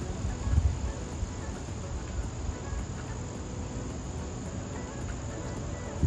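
Insects, cricket-like, chirping in a steady high chorus over a low rumble that swells briefly about half a second in.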